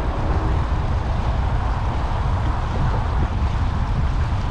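Wind buffeting the microphone: a steady, loud low rumble that rises and falls unevenly.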